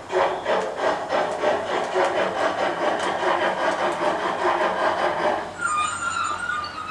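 Gauge 1 KISS model of a BR 45 steam locomotive running slowly, its onboard sound unit playing a steady rhythmic steam-exhaust chuff. A steady high tone joins near the end.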